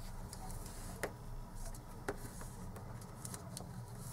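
Faint rustling of a folded paper origami envelope as fingers press and smooth its creases on a cutting mat, with scattered soft clicks of paper and fingertips, two of them sharper about one and two seconds in.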